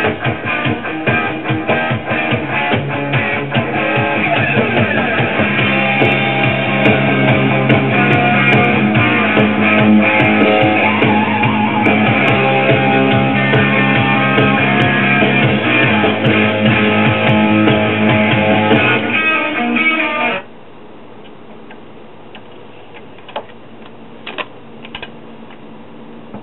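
A 45 rpm record playing music through a 1965 Magnavox Astro-Sonic solid-state console stereo. The music cuts off suddenly about twenty seconds in, leaving a low hiss with a few faint clicks.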